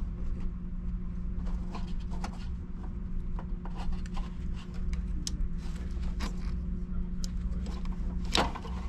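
Small clicks and scrapes of a push-on wire connector being worked off a contactor's coil terminal and handled, with a sharper click near the end, over a steady low hum.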